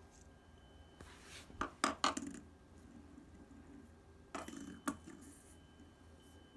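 Plastic fidget spinner clicking and knocking against a wooden tabletop as it is handled and set down: a cluster of sharp knocks about a second in, and another just past four seconds.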